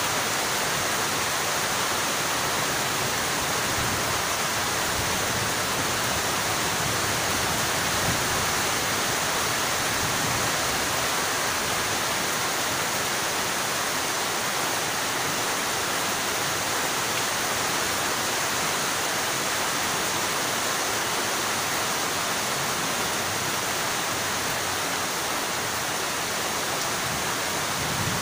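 Heavy rain falling, a steady, even hiss with no breaks.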